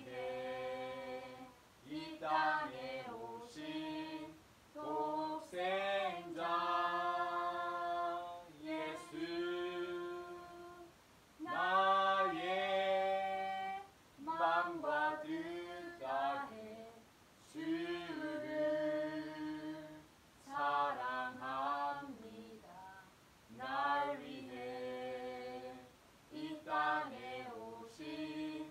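A man singing a slow worship song unaccompanied, in sung phrases of a second or two, with held notes and short breaks between them.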